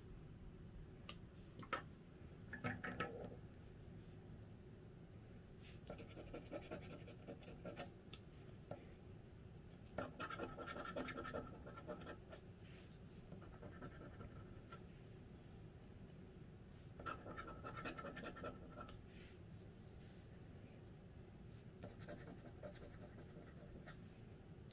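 A scratch-off lottery ticket's coating being scraped off with a flat scraper, in several short runs of faint scratching a second or two long, with pauses and a few light taps between them.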